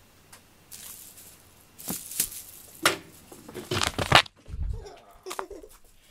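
A black cat dashing and scrabbling across carpet: a run of rustling, scratching and rattling with sharp clicks as its claws catch, then a dull thump just after the middle.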